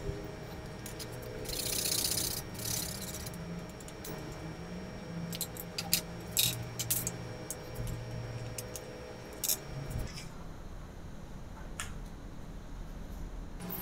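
Lengths of PVC pipe being handled and fitted together: scraping and rubbing, with a brief hiss early on and a run of light clicks and knocks a few seconds later.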